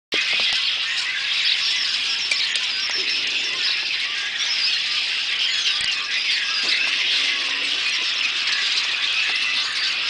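A huge flock of red-winged blackbirds calling all at once: a dense, steady din of many overlapping high chirps and squeaks.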